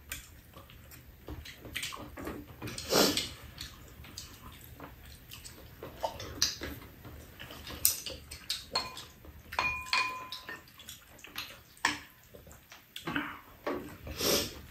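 Table eating sounds: chopsticks and spoons clicking and clinking against bowls, a few clinks ringing briefly about two-thirds of the way in. Two louder slurps of seaweed soup from a spoon, one about three seconds in and one near the end.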